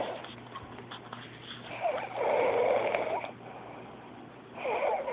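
A man snoring in deep sleep: one long snore about two seconds in, and the next one starting near the end.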